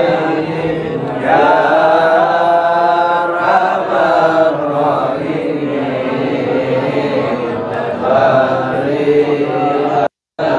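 A group of men chanting Islamic dhikr together in unison, with long held, wavering notes; the sound cuts out for a moment near the end.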